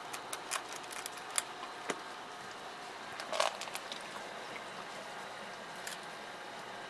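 Cat eating from a stainless steel bowl: a run of small quick clicks and crunches, densest in the first two seconds and thinning out after, with one louder brief noise about three and a half seconds in.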